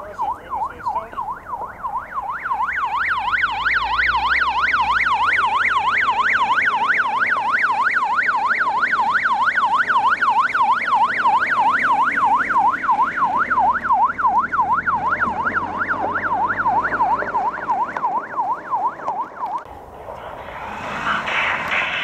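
Vehicle siren on a rapid yelp, its pitch sweeping up and down several times a second. It grows louder over the first couple of seconds and cuts off near the end, with a low vehicle rumble under it at times.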